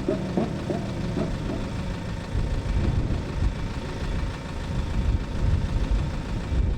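Race car engine note dying away after a pass, with a few sharp exhaust pops in the first second, followed by an uneven low rumble.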